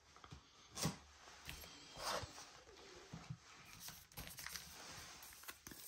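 Faint handling noises of trading cards and pack wrappers: a few soft rustles and taps, the most distinct about one and two seconds in.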